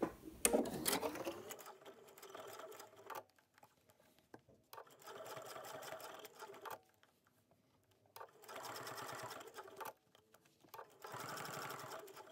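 Pfaff Quilt Expression 4.2 sewing machine stitching through faux leather in four short runs, stopping briefly between them.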